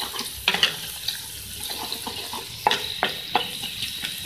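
Chopped onions sizzling in hot oil in a metal karahi while a wooden spatula stirs them. The spatula knocks sharply against the pan a few times: once about half a second in, then three times close together around three seconds in.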